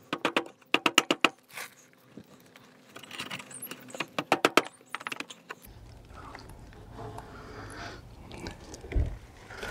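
Plastic front bumper of a VW T4 van rattling and clicking in quick runs as it is tugged and wiggled to slide forward off its mounting brackets.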